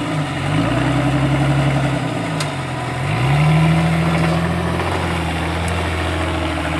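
Off-road trial vehicle's engine working hard as it crawls over mud mounds, its revs dropping and climbing again twice, about half a second and three seconds in.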